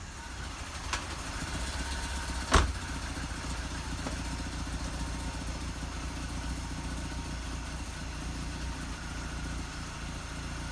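BMW E36's M44 four-cylinder engine idling steadily after a coolant connector replacement, running while the new connector is checked for leaks. A small click comes about a second in and a loud sharp knock about two and a half seconds in.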